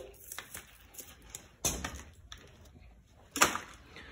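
Scattered sharp clicks and knocks of metal parts being handled on a bare engine block during teardown, the two loudest knocks about a second and a half apart near the middle.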